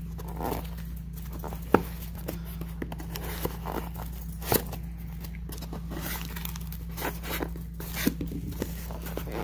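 Hands pulling and tearing at a small cardboard shipping box that resists opening: scattered scraping, tearing and sharp cardboard clicks, the two loudest about two and four and a half seconds in, over a steady low hum.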